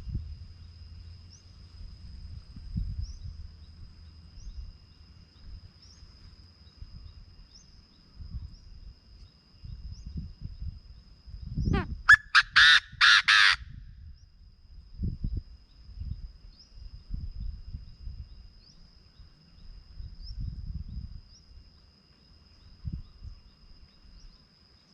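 A Chinese francolin giving one loud call about halfway through: a short rising note followed by about four quick, harsh notes. A steady faint high whine and a low rumble run underneath.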